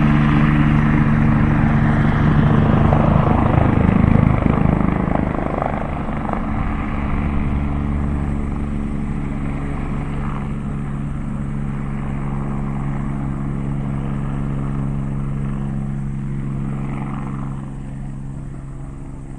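Air-ambulance helicopter's rotors and turbine engine running as it climbs away after takeoff: a steady low drone, loudest a few seconds in, then fading as it flies off.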